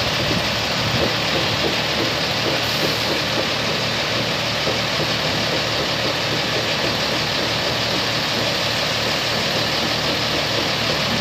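Diesel engine of a 50-tonne truck crane running steadily.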